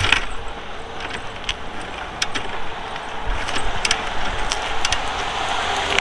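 Bajaj Discover 125 being kick-started by hand. The kick lever and its ratchet give scattered sharp clicks and knocks, with a low thump about three seconds in, and the engine does not catch.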